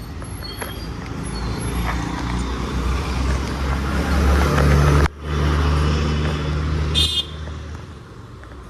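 Street traffic with a vehicle engine running close by, growing louder over the first five seconds, and a brief shrill sound about seven seconds in.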